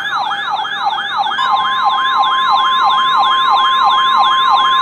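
A weather alert radio's warning siren, a rapid rising-and-falling wail about three times a second. About a second and a half in, NOAA Weather Radio's steady warning alarm tone joins it, signalling that a warning is being broadcast.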